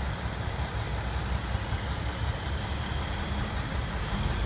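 Steady low outdoor rumble with an even hiss above it; no single event stands out.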